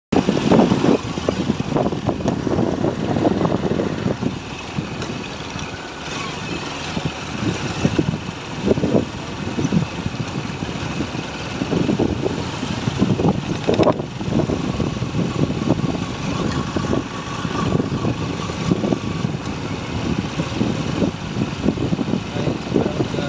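Motorcycle engine running while riding down a street, under gusty wind buffeting on the microphone that comes and goes in irregular low rumbles. A faint steady whine sits in the middle of the ride.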